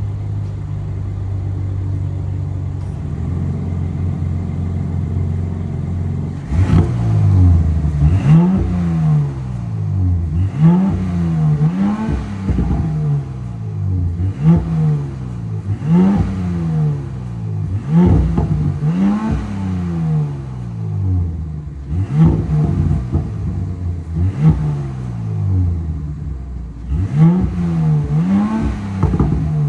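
2025 Audi S5 (B10) turbocharged V6 through its stock exhaust, idling steadily for about six seconds, then blipped again and again. Each rev rises and falls back in pitch, one every one to two seconds.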